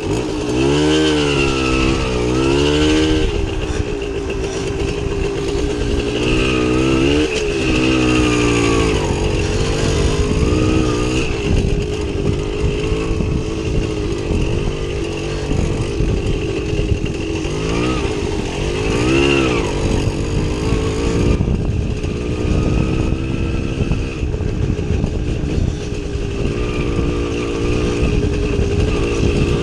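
Small single-cylinder two-stroke motorcycle engine ridden offroad, its pitch rising and falling repeatedly as the throttle is opened and closed, then running at a steadier speed in the last third.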